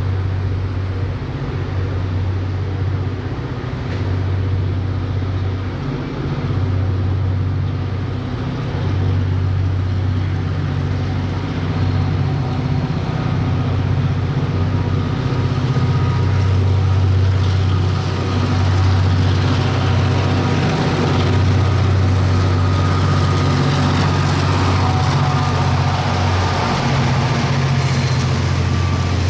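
Diesel-electric freight locomotive engine running hard with a steady deep drone, growing louder as the train approaches.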